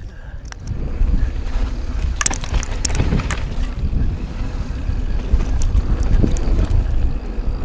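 Mountain bike ride: wind rushing over the microphone as a steady low rumble, with scattered clicks and rattles from the bike running over rough trail.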